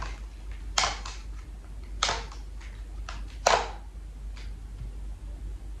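Tarot cards being dealt one at a time from a deck onto a table: three sharp card snaps, about a second apart, with fainter card flicks and rustles between them, over a low steady hum.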